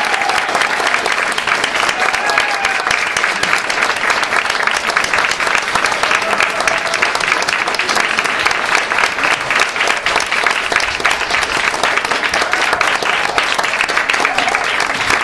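Theatre audience applauding steadily, with some cheering voices mixed in during the first few seconds.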